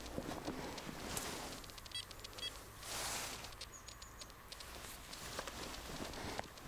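Footsteps crunching through snow, with a quick run of short high beeps or chirps about two seconds in and a faint high tone a little later.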